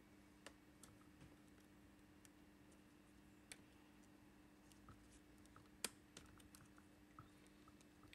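Near silence over a low steady hum, broken by a few faint, sparse clicks of a screwdriver tip and fingers working at the wires and plastic parts of a Dyson DC25 vacuum cleaner's ball assembly; the sharpest click comes about six seconds in.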